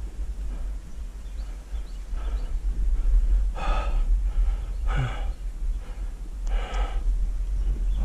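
A rock climber's heavy, effortful breathing on a hard section of a climb: three loud breaths in the second half, over a steady low rumble.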